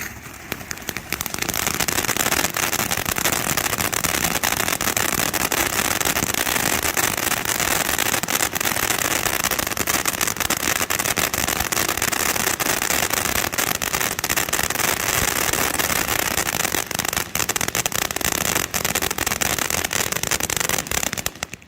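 A 500-gram fountain firework spraying dense crackle: a continuous hiss packed with rapid crackling pops. It cuts off sharply near the end as the fountain burns out.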